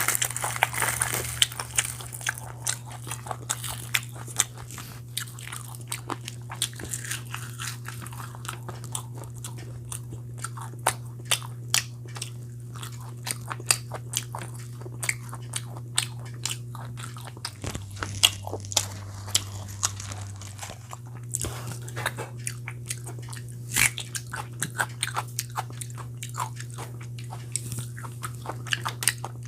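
Close-miked mukbang eating: a person biting and chewing chicken leg piece in curry with puri, with many sharp wet clicks and crunches. A steady low hum runs underneath and changes pitch briefly a little past halfway.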